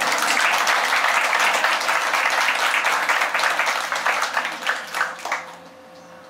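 Audience applauding, many hands clapping at once, dying away after about five and a half seconds.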